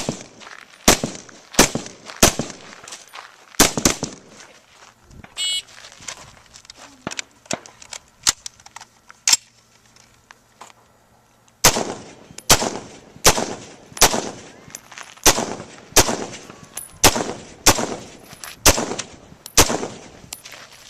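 Rifle shots at a shooting range. There are several quick shots in the first few seconds, then a lull with a few fainter shots, then a steady string of fire at about one and a half shots a second through the second half.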